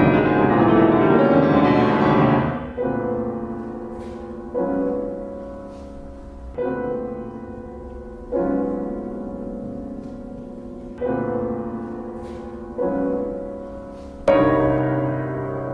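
Solo piano playing a slow contemporary classical piece. A loud, dense wash of ringing notes cuts off about two and a half seconds in. Then single chords follow about every two seconds, each left to ring and fade, and the last is the loudest.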